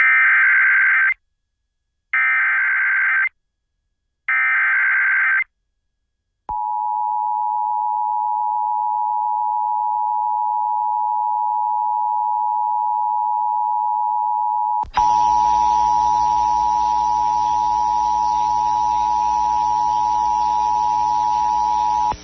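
Emergency Alert System signal: three short bursts of SAME header data tones, each about a second long and a second apart, followed by the steady two-tone EAS attention signal for about fifteen seconds. Partway through the tone a click brings in hiss and a hum underneath it.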